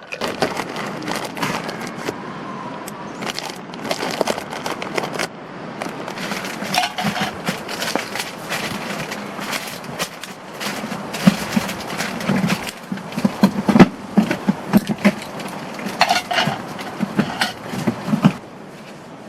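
Clattering and scraping of objects being handled, an irregular run of clicks and knocks with heavier thuds in the second half, stopping abruptly near the end.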